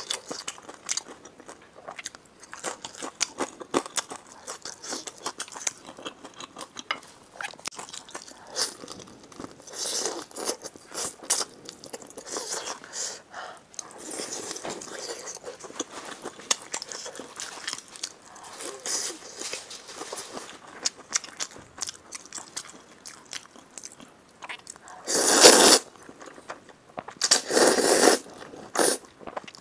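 Close-miked mukbang eating of spicy fire chicken noodles: continual wet chewing and smacking with crunchy bites, and two louder, longer slurps near the end.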